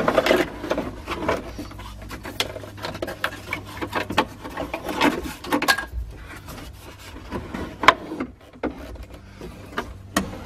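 Plastic dash pad of a 1989–95 Toyota being pulled and wiggled out of the dashboard frame: irregular scraping, rubbing and creaking of plastic with scattered clicks and knocks, the sharpest knock about eight seconds in.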